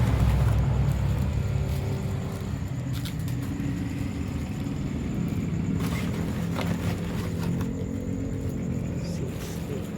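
A motor vehicle's engine running, loudest at the start and fading over the first few seconds, then swelling a little again near the end, with a few light clicks over it.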